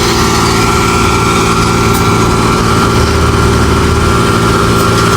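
Heavy machinery's engine running steadily at a constant speed, with a thin steady whine above it and a couple of faint clicks.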